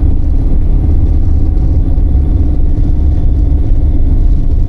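A car driving at steady speed: constant low engine and road rumble.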